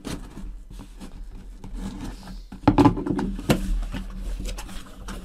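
DeWalt folding utility knife slitting the tape and cardboard of a shipping box, with irregular scraping and rubbing of the cardboard. A few sharp knocks come about three seconds in as the box is handled.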